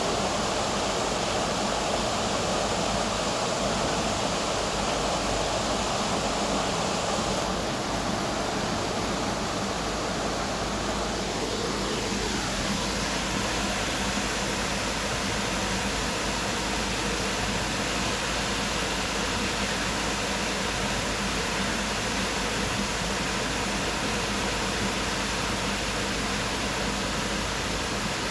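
Tropical waterfall rushing steadily, with a faint tone gliding downward about halfway through.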